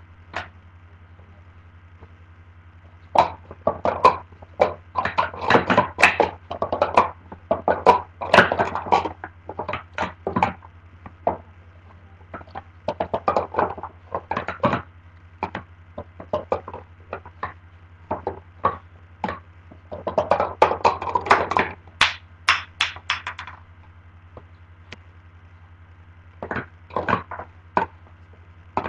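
Plastic sport-stacking cups clacking against each other and the tabletop in rapid runs of clicks as they are stacked up into pyramids and swept back down, with pauses between runs. A steady low hum lies underneath.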